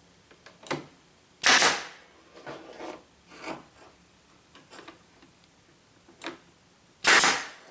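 Hand work on a wooden display at a workbench. Two loud short bursts, about a second and a half in and again near the end, with quieter knocks and scrapes between them.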